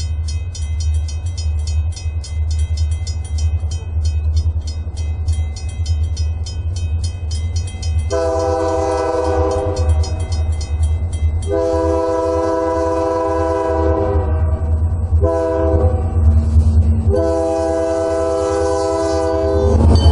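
Grade-crossing signal bell ringing rapidly as the crossing gate comes down. Then a Canadian Pacific diesel locomotive's air horn sounds the crossing signal, long, long, short, long, over a steady low rumble. It grows louder near the end as the locomotive reaches the crossing.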